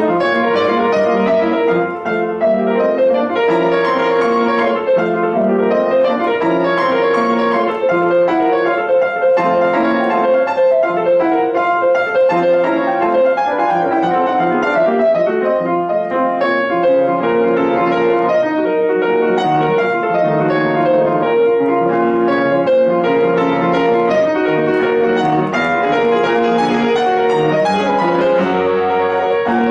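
Solo acoustic piano playing classical music without pause.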